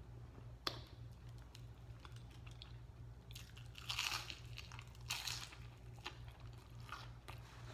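Biting into a crispy battered onion ring and chewing it: crisp crunches, loudest about three to four seconds in and again about five seconds in, with smaller ones after. A single sharp click comes just under a second in.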